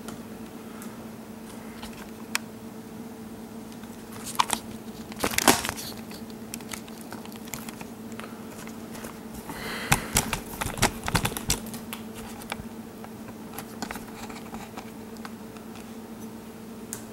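Light clicks and rustling of plastic laptop parts being handled and pressed into place during reassembly. They come in short clusters, the busiest about five seconds in and about ten to eleven seconds in, over a steady low hum.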